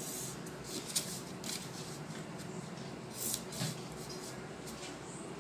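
Green felt-tip marker drawing lines on folded pattern paper along a plastic ruler. A few short strokes, with the paper and ruler rustling as they are moved.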